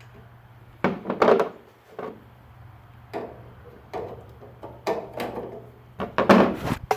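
Short scraping and knocking handling noises, six or so in a row, the loudest about a second in and near the end, as tools and parts are worked at a taillight whose drilled-out screw head has just broken off, over a steady low hum.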